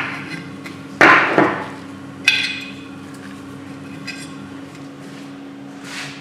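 Hand tools striking metal engine parts: two sharp knocks about a second in, then a ringing metallic clink, then a few softer taps, over a steady low hum.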